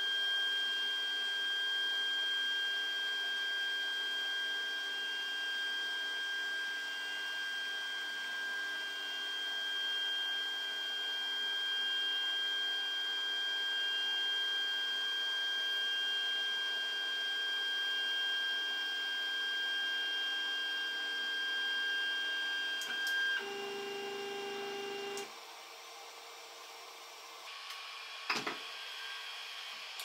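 Creality Ender 3 3D printer with the stock 8-bit V1.1.4 board printing. Its stepper motors give a steady high whine over the hum of its fans. About 23 seconds in the sound changes and then drops to a quieter printer hum, with a single click near the end.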